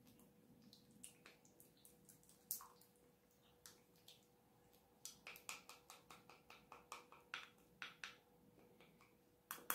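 Faint wet clicks and taps of a silicone spatula stirring an egg yolk, honey and linseed oil mixture in a glass bowl, sparse at first, then a quicker run of about three a second from about halfway.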